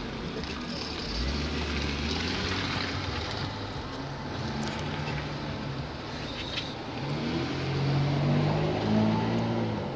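Carburetted petrol car engine running, heard close up in the open engine bay, a steady low drone that swells and picks up speed a little from about seven seconds in.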